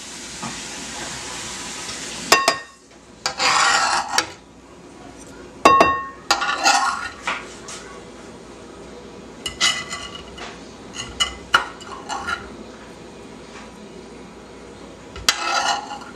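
A kitchen knife clinking against a ceramic bowl and scraping on a wooden cutting board while chopped garlic is moved into a bowl of rice. There are several sharp clinks, a few with a brief ring, between short scrapes, after a hiss in the first couple of seconds.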